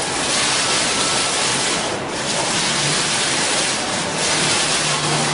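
A pattern-drawing water-curtain fountain: sheets of water released from the top bar fall and splash into the basin below as a steady rushing hiss that thins briefly twice, about two and four seconds in.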